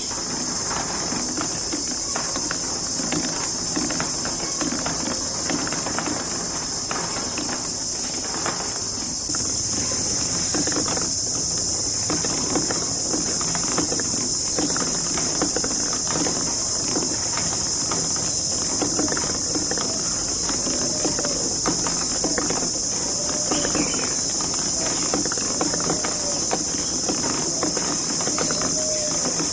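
Marbles rolling and clacking along a plastic marble-run track, a dense run of small clicks over a steady high hiss that grows louder about nine seconds in.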